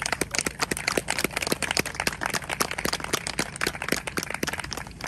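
A small group of people clapping in applause, brisk and uneven, cutting off abruptly.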